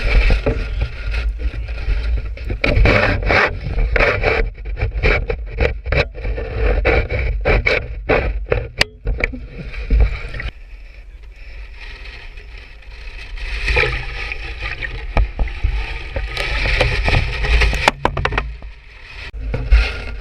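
Boat underway in choppy water: irregular splashes and slaps of water against the hull over a steady low rumble of wind on the microphone, easing off about halfway through and building again near the end.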